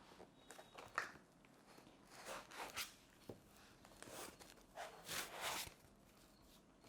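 Packaging being handled as a laptop is taken out of its box: a sharp click about a second in, then two short spells of rustling.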